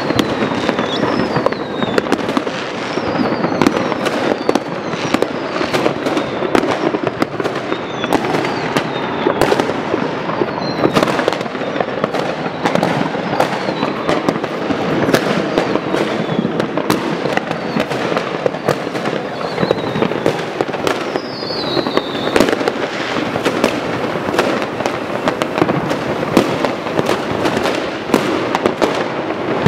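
Dense, non-stop fireworks and firecrackers going off all around: a continuous rattle of cracks and bangs, with repeated whistles falling in pitch, the clearest one about twenty seconds in.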